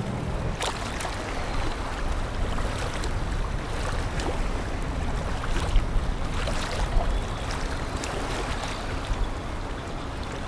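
Wind buffeting the microphone over the wash of sea waves, a steady low rumble with a few sharp gusty knocks.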